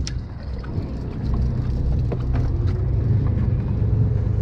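Low, steady rumble of the fishing boat's engine running, with a few faint clicks and knocks on deck over it.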